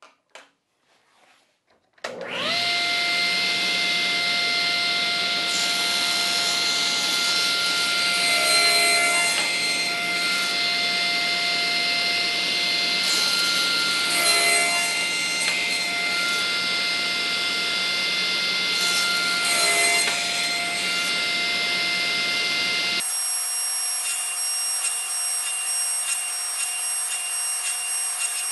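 A table saw starts up about two seconds in and runs steadily with a held whine. Its blade cuts through MDF three times as the corners of a circle blank are trimmed off. Near the end the lower part of the sound drops away, leaving a steady higher hum.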